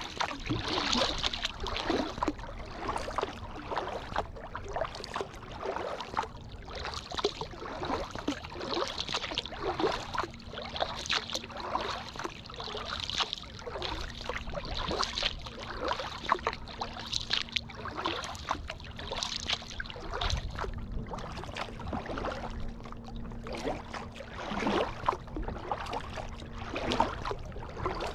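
Kayak paddle blades dipping and pulling through the water in a steady rhythm of strokes, with water splashing and dripping off the blades.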